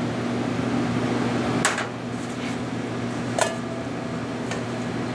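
Steady hum of kitchen equipment, with two sharp clinks of a utensil or ramekin against a stainless steel mixing bowl, the second leaving a short ring.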